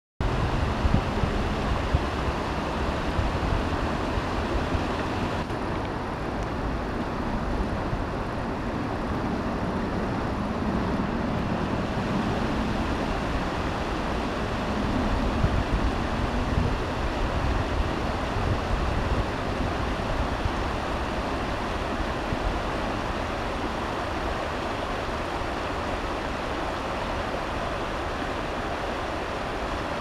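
Shallow river rushing over stony riffles, a steady rushing of water, with wind rumbling on the microphone.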